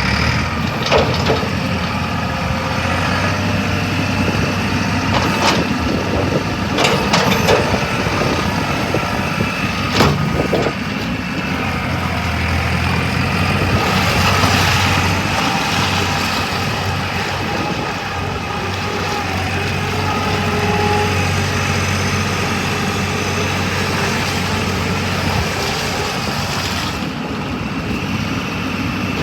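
Engine of a 1999 New Holland LX865 skid steer loader running steadily. Several sharp metallic clanks sound in the first ten seconds or so.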